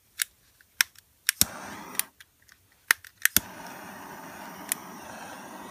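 Handheld butane torch being lit: a run of sharp ignition clicks, the flame catching briefly about a second in and going out, then lighting for good after about three and a half seconds and burning with a steady hiss.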